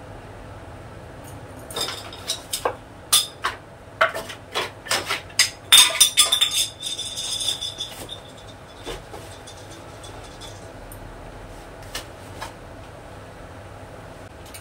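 Small plastic toys and items clattering and knocking in an open hard-shell suitcase on a tiled floor while it is being packed: a quick string of sharp clicks and clacks over about five seconds, busiest just before the middle, then only an occasional single knock.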